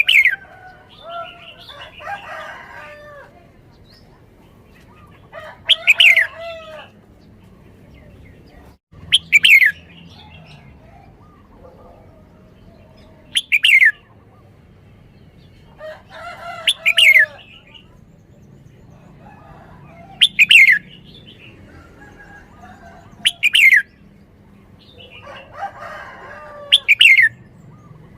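Red-whiskered bulbul singing: loud, short whistled phrases, each ending in a sharp downward sweep, repeated about every three to four seconds, with softer warbling notes between them.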